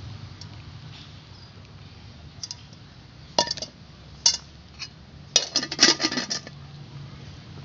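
Scattered sharp clinks and knocks, then a burst of rapid clattering about five to six and a half seconds in, as a cooking pot and a plastic basin are handled while a slaughtered chicken is scalded in hot water for plucking.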